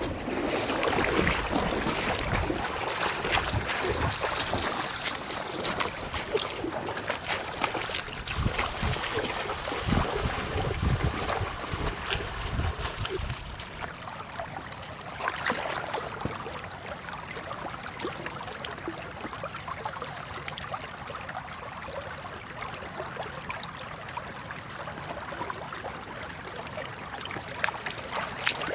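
Water sloshing and splashing, with low rumbling thumps through the first half before it settles to a quieter, steady wash.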